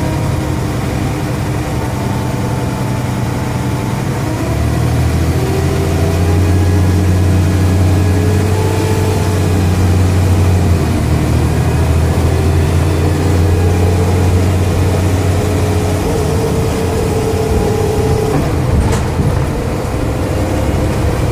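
Dennis Trident double-decker bus's diesel engine under load, its low drone growing louder about four seconds in, with whining tones above it that slowly rise in pitch. The engine is loud, and its turbo is taken by the uploader to be bad. A sharp tick comes near the end.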